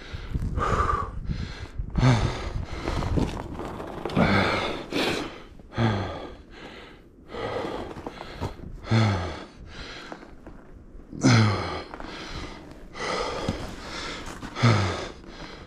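A man breathing hard and gasping to catch his breath, winded from riding: loud, heavy breaths about every two seconds, each exhale voiced and falling in pitch.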